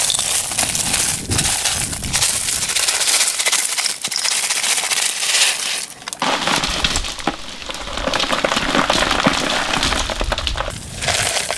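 Broken bricks, stones and lumps of tar clattering and crunching against each other as they are tipped and spread as gravel along the bottom of a greywater trench. The clatter is continuous, dips briefly about six seconds in, then picks up again.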